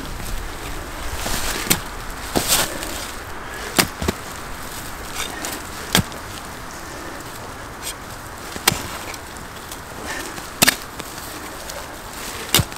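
A short-handled digging tool chopping and scraping into forest soil while a hole is dug out, about eight sharp strikes at uneven intervals with gritty scraping of dirt between them.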